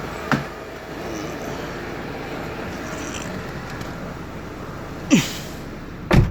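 Mercedes W211 E200 running steadily at idle, interrupted by three short sharp thumps: one just after the start and two near the end, the last the loudest.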